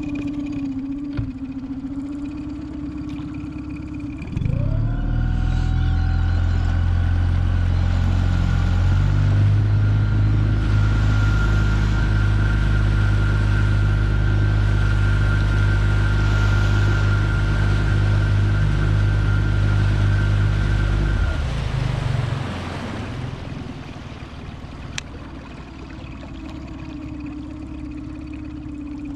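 Mercury outboard motor running slowly at trolling speed. About four seconds in it is throttled up sharply, with a rising whine, and runs much louder for some seventeen seconds. Then it is throttled back down to a low run.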